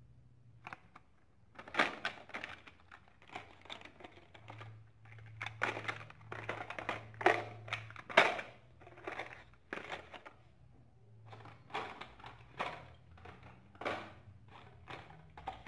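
Carded Hot Wheels blister packs being handled and shuffled: an irregular run of plastic clicks, taps and crinkles from the plastic bubbles and cardboard backing cards, a few a second.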